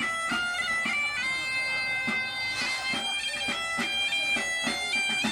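Asturian bagpipe (gaita) playing a tune with quick note changes between held notes.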